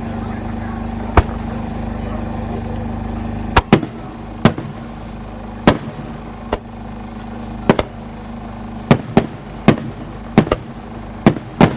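Aerial fireworks shells bursting: one sharp bang about a second in, then a quick, irregular string of sharp bangs from about three and a half seconds on. A steady low hum underlies the first few seconds.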